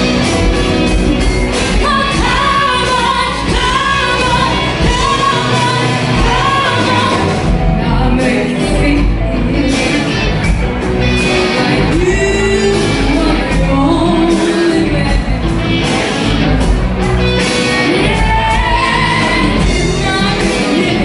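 Live band playing a rock/pop song: a woman sings over amplified electric guitars, electric bass and drums.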